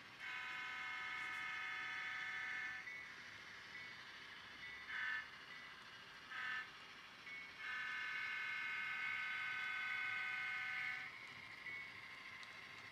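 Model train sound decoder playing a diesel locomotive horn for a grade crossing: one long blast, two short blasts, then another long blast.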